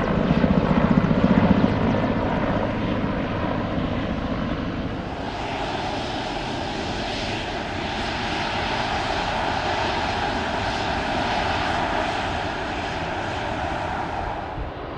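Airliner engine noise: a loud, throbbing low rumble for the first couple of seconds, then, about five seconds in, a steadier and higher engine sound.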